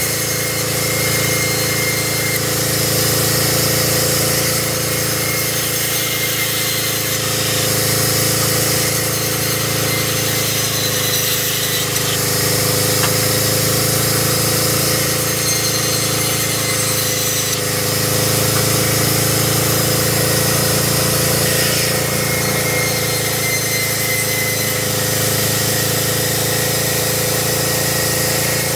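Sawmill band saw running steadily and ripping sengon (Falcataria) boards. The hiss of the blade through the wood swells and eases every few seconds as the boards are fed through.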